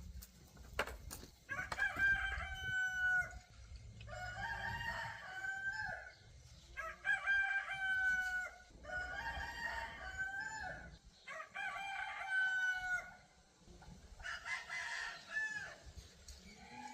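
Roosters crowing, about six crows in quick succession, one every two seconds or so, some overlapping as if from more than one bird.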